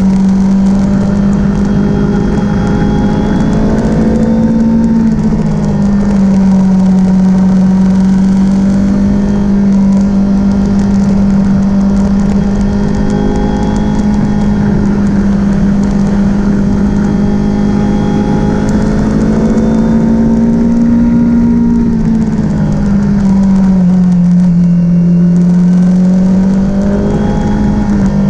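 Kawasaki Z400 motorcycle's parallel-twin engine running at a steady speed, its pitch rising and falling slightly twice.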